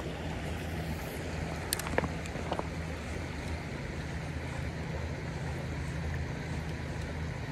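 Steady rush of shallow creek water running over rocks, with a few sharp clicks about two seconds in.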